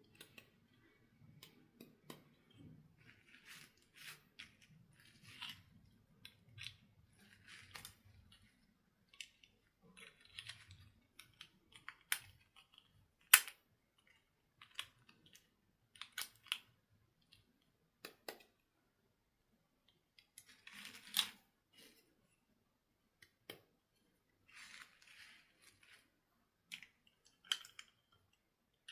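Small plastic toys and packaging handled by hand: faint, irregular clicks, taps and short rustles, with one sharper snap about 13 seconds in and a longer rustle a little past the middle.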